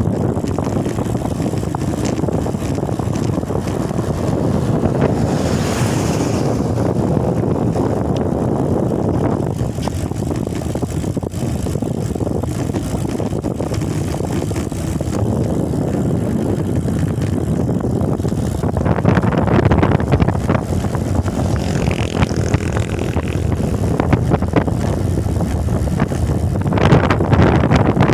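Steady rumble of a moving vehicle with wind buffeting the microphone, growing a little louder and rougher in the last third.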